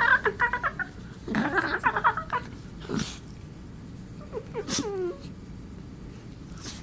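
Wirehaired dachshund puppy making odd, high-pitched play vocalisations ('alien noises') in several short bouts; the last, about five seconds in, slides down in pitch.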